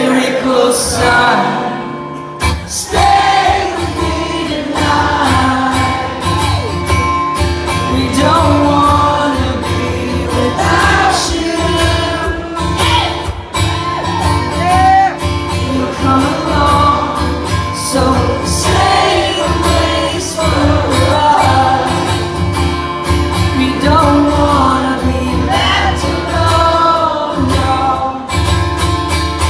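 A man singing to his own acoustic guitar in a live song performance.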